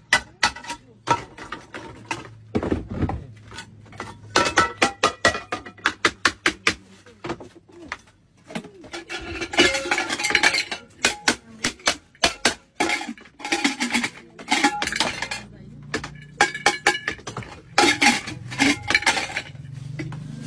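Aluminium pots, kettles and pressure cookers clanking and knocking against one another, in runs of many quick metallic clanks that ring briefly, with short pauses between the runs.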